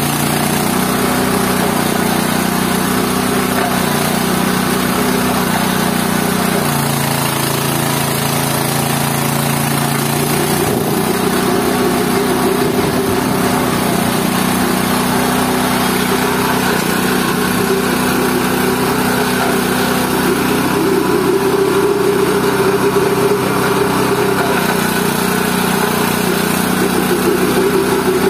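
GT-14 organic-waste pulper machine running steadily, its motor hum shifting pitch slightly a few times, as when the load changes while it grinds vegetable waste.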